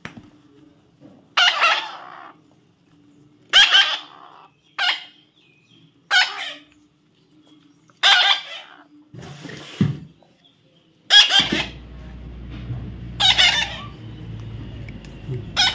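A parrot giving short, loud, squawking calls, about eight of them a second or two apart. From about two-thirds of the way through, a low steady hum runs beneath them.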